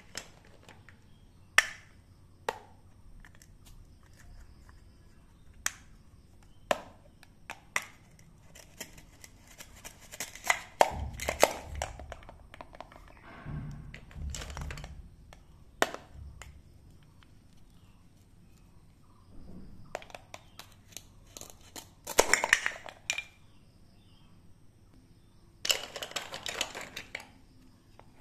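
Toy plastic fruit and a plastic toy knife handled on a plastic cutting board: scattered sharp clicks and taps. Three times there is a short, dense crackle of rapid ticks as velcro-joined fruit halves are cut apart.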